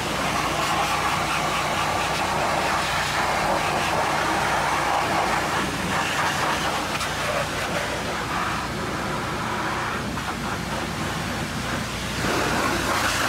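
High-pressure washer jet spraying against the muddy underside of a truck, a steady hiss and spatter of water on the axle and differential. The sound shifts as the lance moves between surfaces, and grows louder again near the end.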